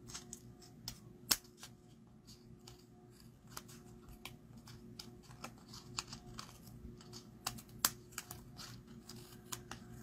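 Scissors cutting paper: a quiet run of small, irregular snips and clicks, with a couple of sharper ones.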